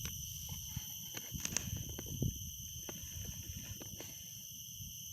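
Steady high-pitched chirring of crickets or similar insects, unbroken throughout, over a low rumble with a few light clicks.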